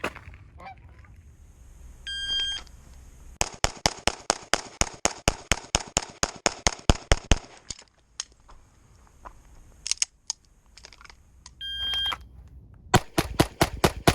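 Shot-timer start beep, then a long rapid string of pistol shots fired in quick succession. A second timer beep follows near the end and another fast string of shots begins.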